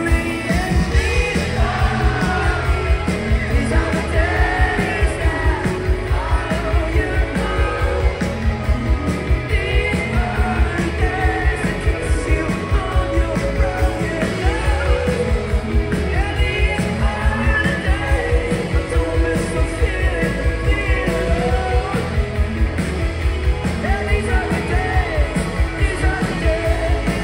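Live rock band playing a song: electric guitars and drums with a steady beat under a male lead singer.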